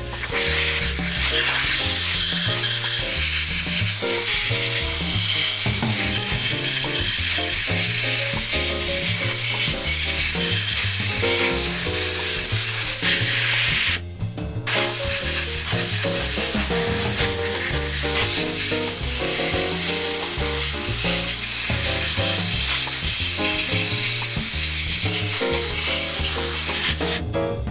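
Background music with a bass line and changing chords under a constant hiss; it drops out briefly about halfway through.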